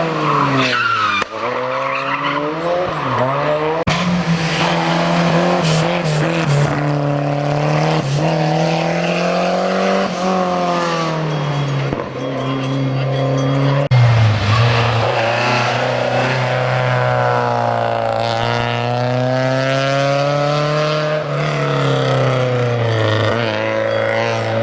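Historic rally car engines running hard on a stage, revving up and down repeatedly with the pitch climbing and dropping many times.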